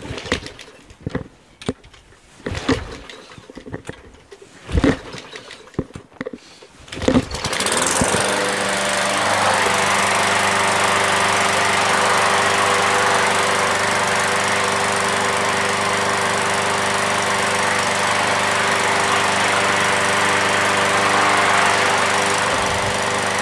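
A few scattered clicks and knocks, then about seven seconds in the small engine of an MTD walk-behind mulching mower fires up and keeps running steadily at a constant speed. It starts after sitting in storage, with only fresh gas and a couple of primer pushes.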